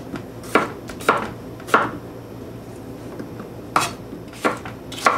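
Chef's knife slicing small potatoes on a wooden cutting board: sharp chops of the blade striking the board about every half second, a pause of about two seconds in the middle, then a few more chops.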